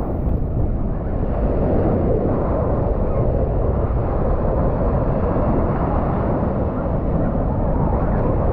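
Mediterranean Sea waves washing onto the shore: a loud, steady, deep rushing noise with no breaks.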